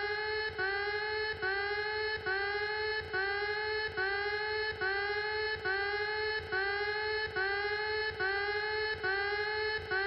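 Emergency alert alarm tone for the "Greece (alt)" entry: a buzzy electronic note repeating steadily, about three notes every two seconds, each sliding up slightly at its start and then holding.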